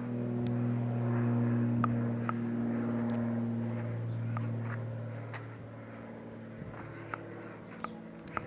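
Cessna 402B twin piston-engine plane passing overhead: a steady propeller drone, loudest in the first few seconds, then fading as it moves away.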